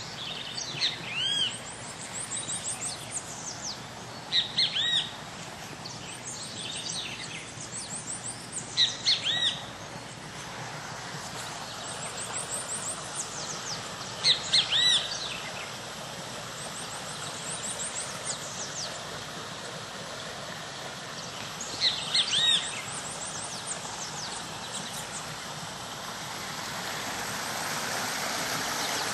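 Wild birds calling: a loud call of a few arched, whistled notes comes five times, several seconds apart, over faint high chirps of other birds. A steady rushing background noise grows louder near the end.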